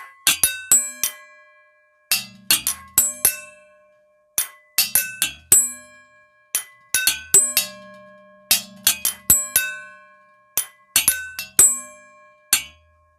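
Utensils filled with different amounts of water being struck in turn, each ringing at its own pitch, so that the different water levels give different notes. The strikes come in quick runs of four or five with short pauses between, like a simple tune.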